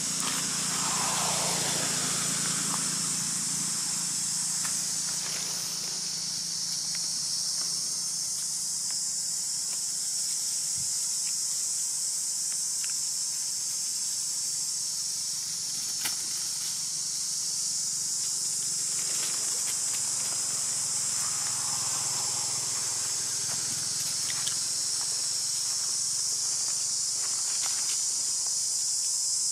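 Steady, high-pitched drone of an insect chorus, with a few faint clicks.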